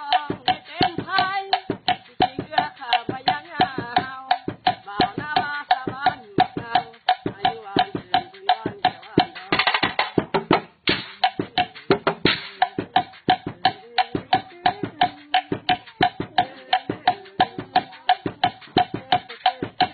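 Fast, steady rhythm beaten with sticks on a homemade percussion set, mainly a hollow log drum that gives a ringing, pitched knock, at about four to five strokes a second.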